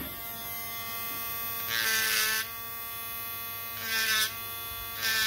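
Mini 12 V rotary engraving tool (about 14,000 rpm) running with a steady high motor whine. Its tungsten carbide burr cuts into a wood block in three short bursts of grinding noise, about two seconds in, near four seconds and at the very end, and the motor's pitch dips slightly under each cut.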